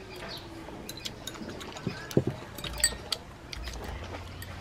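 Irregular small clicks and taps of chopsticks against ceramic bowls while eating, with two sharper clicks about halfway through.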